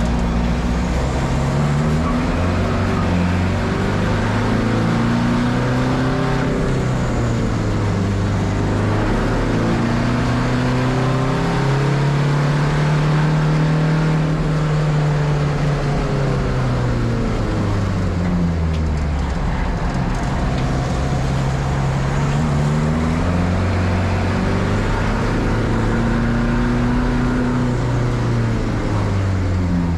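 Car engine running under varying load, its pitch rising and falling in slow sweeps of several seconds over a steady rumble.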